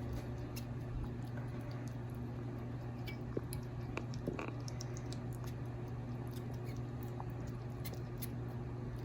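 Faint scattered tiny clicks and ticks from a sugar glider, over a steady low hum.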